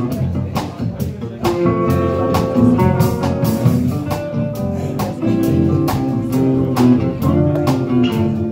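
Live band playing with acoustic and electric guitars over a drum kit keeping a steady beat.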